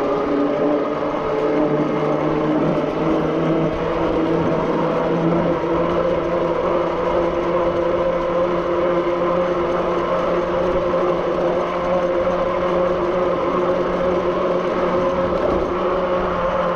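Zugo e-bike's electric motor whining while riding, its pitch climbing a little in the first two seconds and then holding steady, over a low rumble of tyres and wind.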